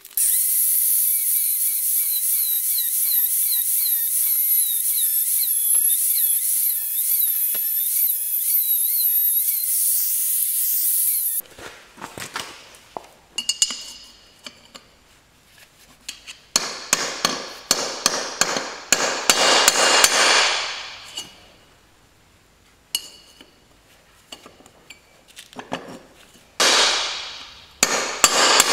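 A loud steady hiss with a wavering whistle-like tone for about the first eleven seconds. It then gives way to metallic clicks, knocks and scrapes from a screwdriver working a bearing retaining circlip into its groove in a steel hub carrier, broken by swelling bursts of hiss.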